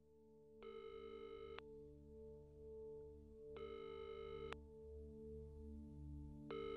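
Telephone ringing tone heard on the line while a call is placed: one-second rings about three seconds apart, two full ones and a third starting near the end, over a faint low steady drone.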